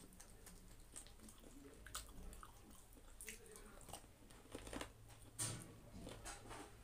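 Faint close-up chewing and mouth sounds of someone eating rice and buffalo-meat pickle by hand: soft, irregular smacks and clicks, the loudest about five and a half seconds in.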